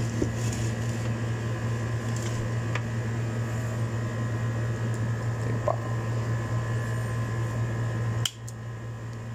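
Over a steady hum, a single sharp click about eight seconds in: the inverter welding machine's relay pulling in as the machine powers up, the sign that the repaired input stage has come up. The hum drops somewhat right after the click.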